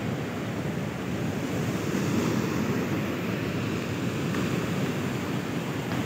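Steady rushing noise of the river's water pouring over rocks, mixed with wind buffeting the microphone.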